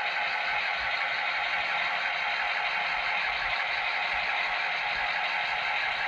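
Model train led by a GP35 model diesel locomotive running steadily along the layout track: an even mechanical running noise, mostly mid- and high-pitched with little deep bass.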